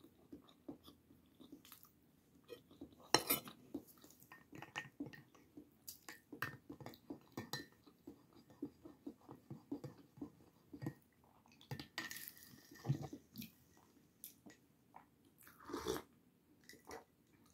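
A person eating close to the microphone: chewing and mouth sounds, with small irregular clicks and taps on a plate. Near the end, a sip from a mug.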